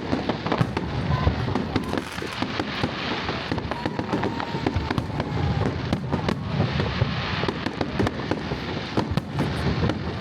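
Fireworks display: a dense, unbroken run of bangs and crackling bursts overlapping one another.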